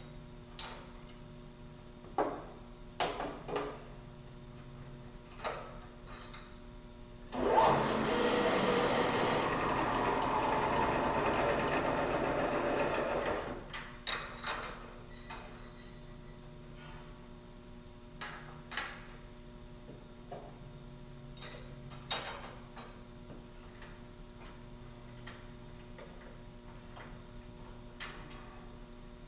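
Scattered metal clanks and knocks of workpiece and tooling being handled while setting up on a milling machine, with a loud rushing noise about seven seconds in that runs steadily for about six seconds and then stops.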